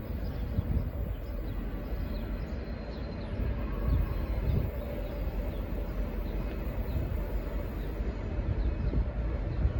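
A low, uneven outdoor rumble, with faint short bird chirps scattered through it.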